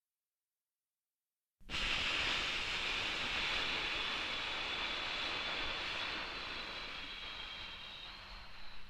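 Breath-out sound effect for the eight-count exhale of 4-7-8 breathing: a long, breathy hiss with a faint whistle, as through pursed lips. It starts suddenly after about a second and a half of silence and fades gradually over about eight seconds.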